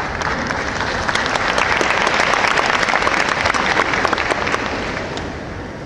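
Audience applause from many people clapping. It builds over the first couple of seconds, holds, and dies away near the end.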